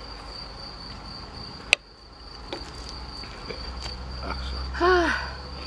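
A steady high insect trill from the garden, with one sharp clink of tableware about a second and a half in. Near the end a person gives a brief voiced "mm".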